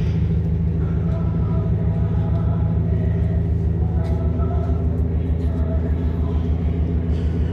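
A diesel train engine idling, a loud, steady low rumble.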